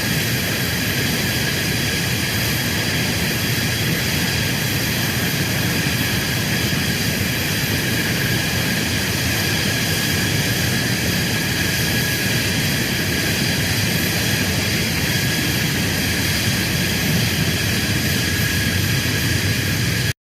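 F-16 fighter jet's turbofan engine running steadily after start-up: a high whine of several steady tones over a low rumble, holding an even level, then cutting off abruptly at the end.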